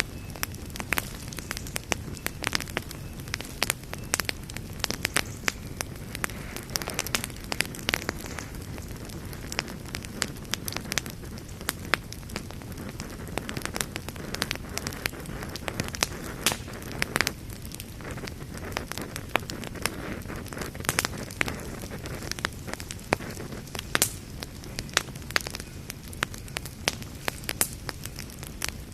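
Wood campfire burning, with frequent sharp, irregular crackles and pops over a steady low rush of flame.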